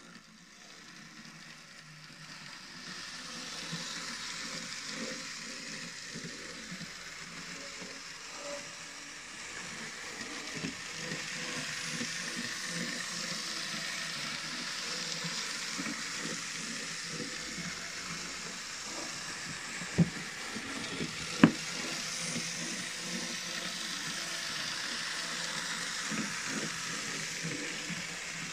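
Märklin mini-club Z-scale T18 tank locomotive model running with four coaches: a steady high hiss from its five-pole motor and wheels, with light irregular clicking over the track. The hiss builds over the first few seconds, and two sharp clicks stand out about two-thirds of the way through.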